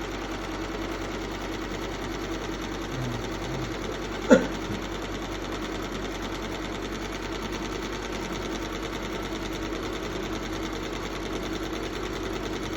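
Single-head computerized embroidery machine stitching a cap, with a steady, rapid needle clatter. A single sharp click about four seconds in.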